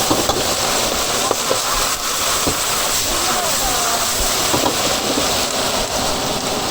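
Steady loud hiss of wok stir-frying, with a few short clinks and faint voices in the background.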